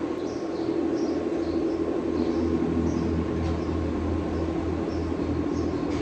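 Steady hum of a barn's ventilation fans, with scattered faint high chirps of small birds.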